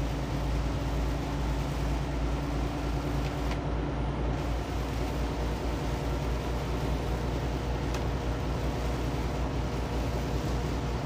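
Inside a semi truck's cab on the highway in heavy rain: the diesel engine runs at a steady cruise drone, with a constant hiss of tyres on the wet road and rain.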